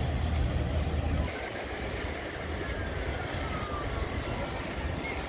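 Outdoor riverside ambience with boat traffic: a low rumble that drops off about a second in, and a faint tone gliding down in pitch around the middle.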